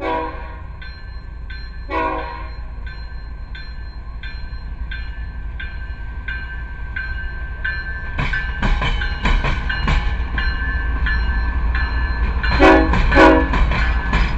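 A diesel freight locomotive's air horn sounds two short blasts over a bell dinging about two and a half times a second. Then the locomotive's engine and wheels grow louder as it passes close by, with two more short horn blasts near the end.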